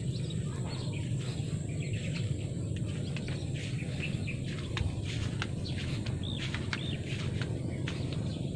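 Outdoor farm ambience: small birds chirping now and then, with a short arched call a little past the middle, over a steady low rumble and scattered faint clicks.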